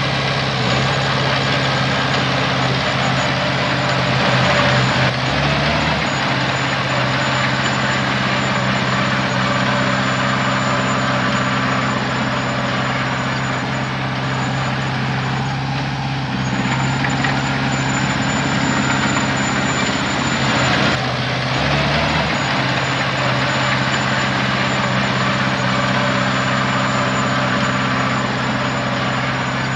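Heavy diesel machinery engine running steadily under work, with a strong low hum and a thin high whine above it. The engine note shifts briefly about 5 seconds in and again near 22 seconds.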